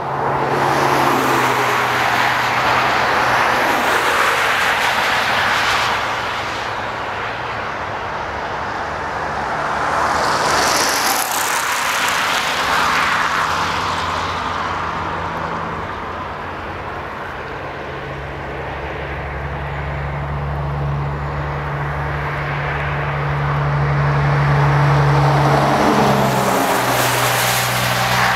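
Low, steady drone of an approaching freight train's GE diesel locomotives, growing louder in the second half, under a rushing hiss that swells and fades a few times.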